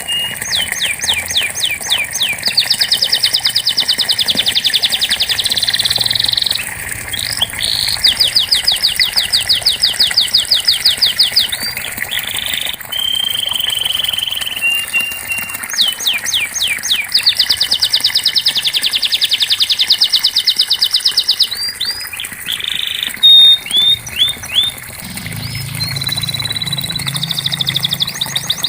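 Domestic canary singing: long rolling trills of fast repeated notes, four main phrases, broken by short whistled notes.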